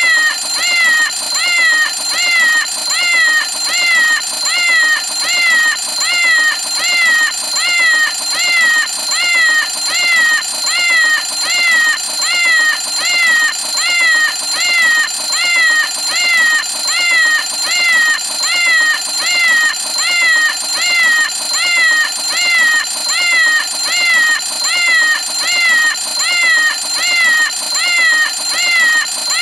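Cartoon cat-face alarm clock ringing: a cat's meow repeated evenly about once a second, over a steady high tone.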